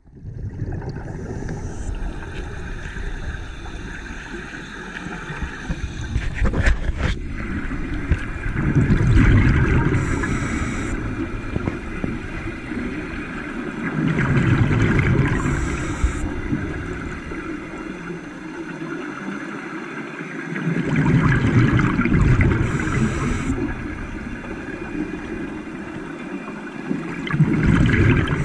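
Underwater sound of divers' breathing gear: rumbling, gurgling exhaust bubbles that swell in surges about every six seconds, with a short hiss near each surge. A single sharp click sounds about seven seconds in.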